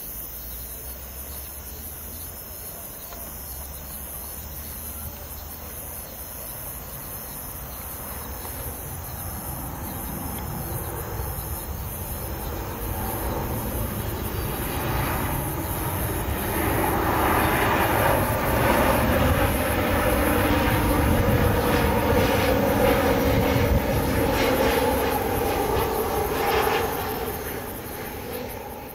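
Boeing 737 MAX 8 on final approach, its CFM LEAP-1B jet engines growing steadily louder as it comes in low, loudest about two-thirds of the way through, then fading near the end.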